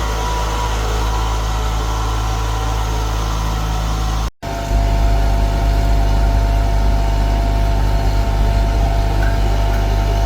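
Diesel engine of a wheeled rotary drilling rig running steadily with a low drone. The sound cuts out for a moment about four seconds in, then the engine resumes with a steady high whine over it.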